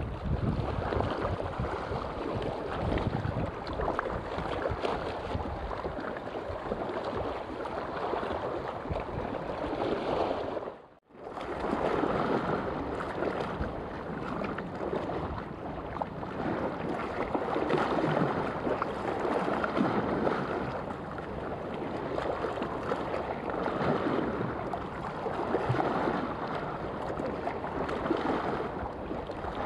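Sea waves lapping and washing close by, mixed with wind noise on the microphone, in an uneven steady rush that swells and eases; it breaks off for a moment about eleven seconds in.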